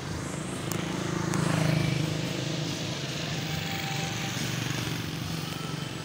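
Motor vehicle engine running, a low drone that swells about a second in and then holds steady.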